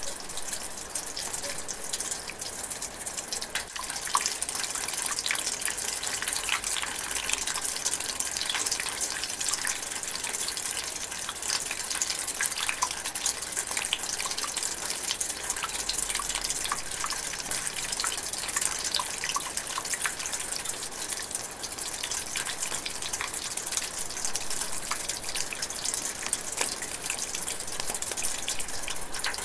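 Steady light rain drizzling, an even hiss dotted with many small drops ticking.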